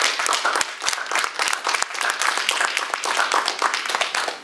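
Audience applauding: dense clapping from many hands that stops fairly abruptly near the end.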